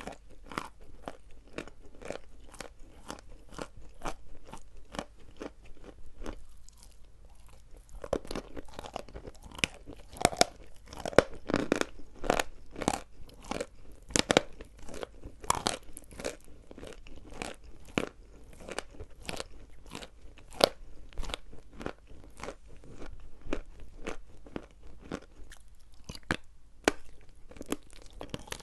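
Dry chalk crunching as it is bitten and chewed: a steady run of crisp crunches, about two or three a second, loudest in the middle stretch.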